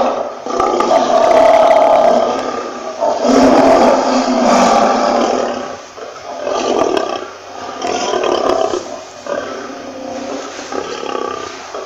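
Lion roaring: two long, loud roars in the first five seconds, then a run of shorter, fainter roars that trail off.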